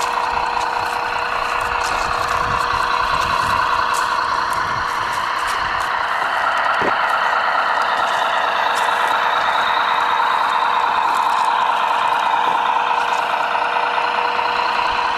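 Radio-controlled scale Peterbilt logging truck driving, a steady mechanical whine from its drive running throughout, with a constant tone underneath and a few light clicks.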